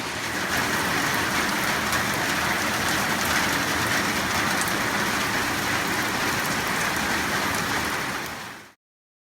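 Heavy rain pouring down in a steady hiss and patter. It cuts off suddenly near the end.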